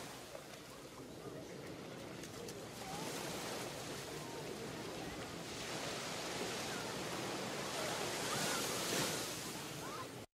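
Sea waves washing ashore, swelling and ebbing, with a few faint short calls above the surf; the sound cuts off abruptly near the end.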